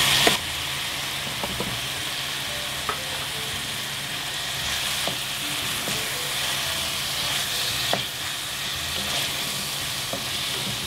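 Sliced peppers, tomatoes and scallions frying in oil in a metal pot: a steady sizzle as they are stirred with a wooden spoon, with a few light knocks of the spoon against the pot.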